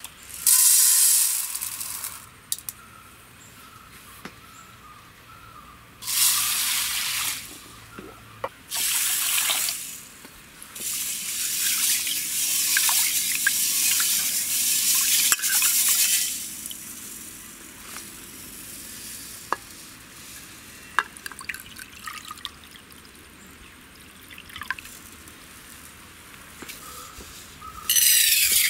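Water swishing and splashing in a stainless-steel bowl as mung beans are washed and rubbed by hand. It comes in several bursts, the longest about halfway through, with quieter drips and small clinks between them. Right at the end the wet beans are tipped from the bowl into a pressure cooker in a short rush.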